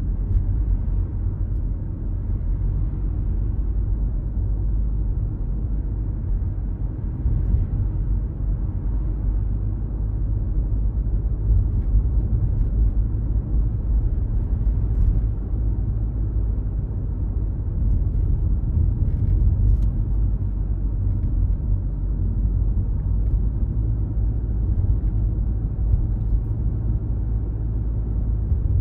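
A car being driven, heard from inside the cabin: a steady low rumble of road and engine noise, with a few faint ticks.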